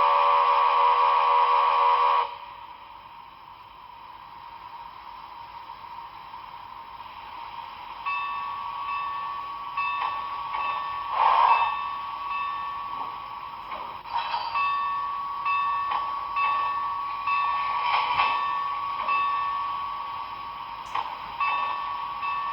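Sound effects from the HO Broadway Limited Milwaukee S-3 model's Paragon4 sound decoder, played through the model's small speaker. A loud chord of several steady tones, like a steam whistle, cuts off about two seconds in. After a quieter stretch, from about eight seconds in, a ringing tone sounds again and again with light clicks between.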